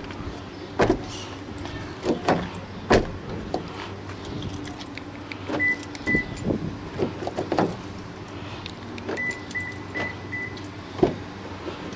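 Sharp clicks and clunks at the car's doors as the newly replaced power door lock actuators are tried out, with two short runs of high beeps.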